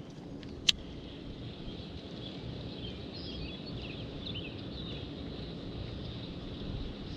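Birds chirping against a steady outdoor background hum, with a single sharp click about a second in.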